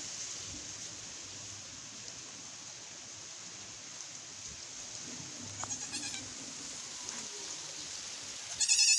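Goat bleating: a faint short bleat about six seconds in, then a loud, wavering bleat near the end.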